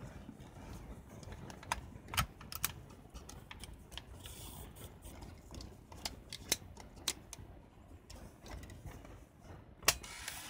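Small plastic clicks and taps of a 35 mm film cartridge being seated and its leader laid across in a Canon EOS 5 film SLR, ending with a sharp snap near the end as the camera back is shut.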